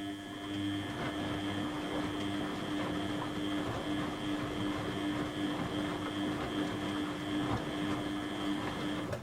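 Beko WTB841R2W washing machine: a steady hum with a high whine over a rushing hiss switches on abruptly and cuts off after about nine seconds, as one of the machine's units runs for a short spell in the cycle.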